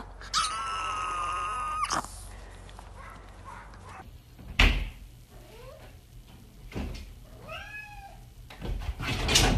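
A small dog gives one long, steady, high-pitched whine. After a cut, a cat hanging on a lever door handle meows, with a thump about halfway through and the door knocking near the end.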